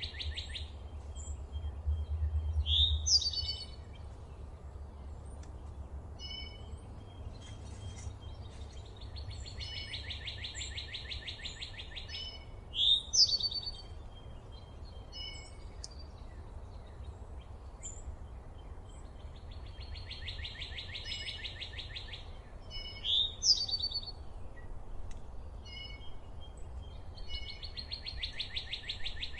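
Wild birds singing: a rapid, even trill of about two seconds repeats roughly every ten seconds, and between the trills come scattered chirps. The loudest sounds are short, sharply rising calls, about three seconds in, again near the middle and again about two-thirds through. A steady low rumble runs underneath.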